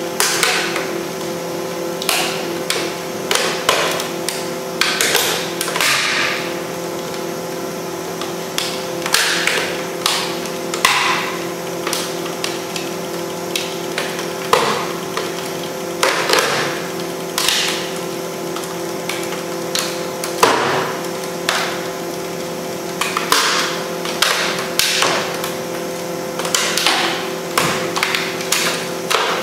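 Plastic housing of a Thomson camcorder cracking and snapping at irregular intervals, every second or two, as it is slowly crushed in a compression testing machine, over a steady hum.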